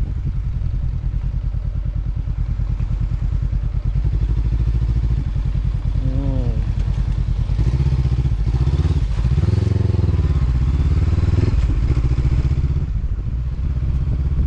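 Honda CB500X parallel-twin motorcycle engine running under way on a trail. The engine note rises and falls a few times past the middle as the throttle is opened and closed.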